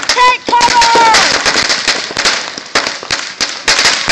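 A long string of firecrackers going off in a dense, irregular run of rapid sharp bangs and crackling. In the first second a high held tone sounds over them and then drops away.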